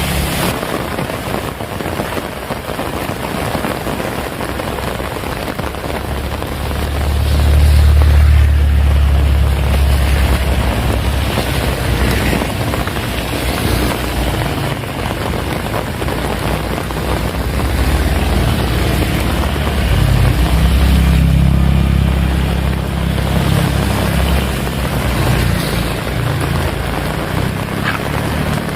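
Heavy rain falling steadily. Two long, deep rumbles swell up over it, about a quarter of the way in and again about two-thirds of the way through.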